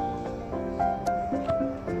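Background instrumental music: a melody of short, evenly paced notes over a low held tone.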